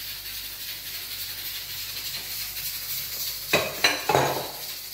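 Steady hiss, then two or three sharp clacks of crockery on the counter about three and a half seconds in.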